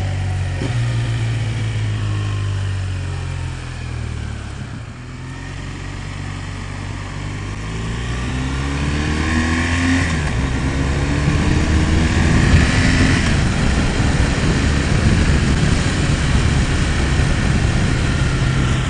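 Motorcycle engine slowing down for about the first five seconds, then accelerating, its pitch rising through a gear change and rising again.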